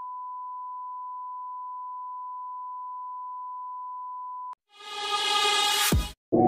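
A steady, even beep tone plays under a film-leader countdown and cuts off sharply about four and a half seconds in. A swelling intro sound effect then rises for about a second and ends in a sharp hit near the end.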